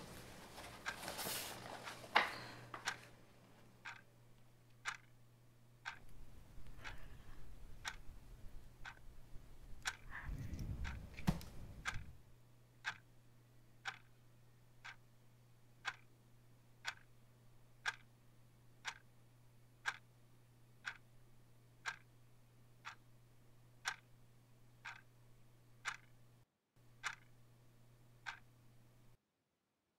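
Quartz clock ticking once a second over a faint steady hum. There is a rustle in the first few seconds and a low rumble swelling and fading around the middle, and the sound cuts off abruptly shortly before the end.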